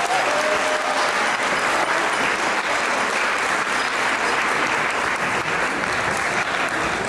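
Guests applauding steadily in a large hall.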